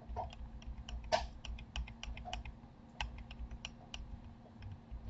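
Irregular clicks and taps of a computer keyboard and mouse, about four or five a second, a few louder than the rest, over a faint steady hum.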